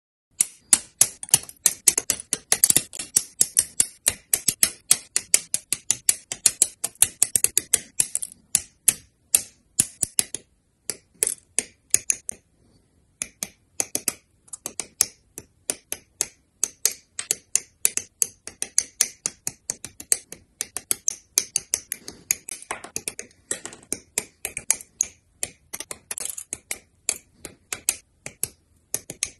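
Hobby nippers snipping plastic Gunpla parts off their runners: a rapid run of sharp clicks, several a second, with a brief pause about halfway through.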